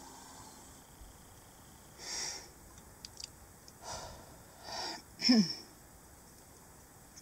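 A person's short, noisy breaths or sniffs, then a loud, brief vocal burst that drops steeply in pitch about five seconds in, sneeze-like. There are two faint clicks about three seconds in.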